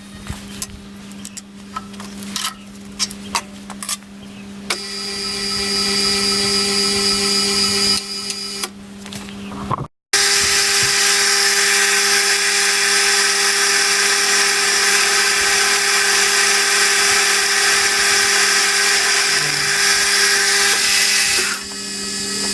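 Electric drill running with a steady hum while a 5 mm bit drills holes in 16 mm steel round tube. A few light clicks come in the first seconds, then two long stretches of loud cutting noise, broken by a sudden short dropout about ten seconds in.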